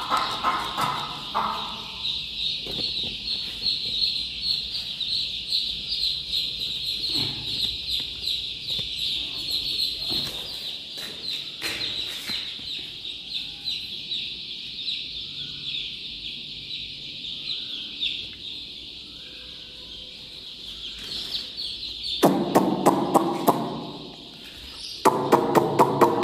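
A large brood of young chicks peeping together in a dense, unbroken chorus of high cheeps. Near the end, loud rhythmic music with a beat comes in over them.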